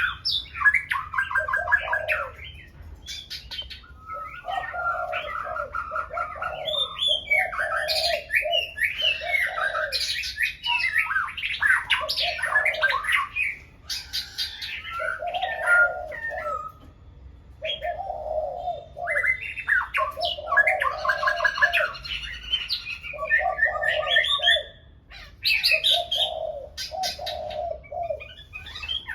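Several birds singing loudly at once: quick chirping and warbled phrases overlap, and a lower phrase comes round again every second or two, with a couple of brief lulls.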